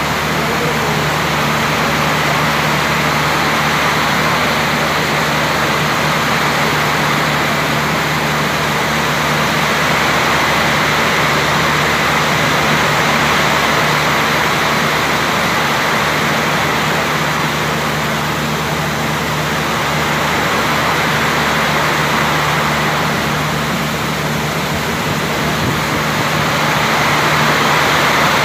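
Heavy monsoon rain pouring down steadily as a dense, even hiss, with a low steady hum underneath.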